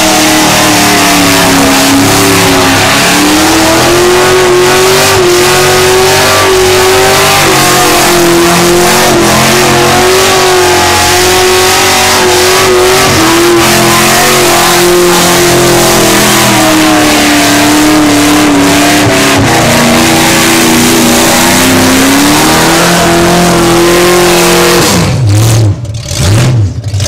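Ford XF Falcon ute's 351 V8 held at high revs through a burnout, the engine note wavering up and down over the noise of the spinning rear tyres. Near the end the revs drop away, rising and falling a couple of times.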